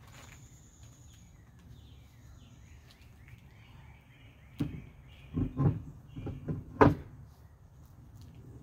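A few dull knocks and clunks while a wheel is fitted onto a car's hub, the loudest near the end, with birds chirping faintly in the background.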